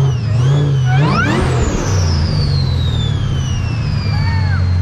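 Car engine revving, with a high whine that climbs sharply about a second in and then falls slowly away.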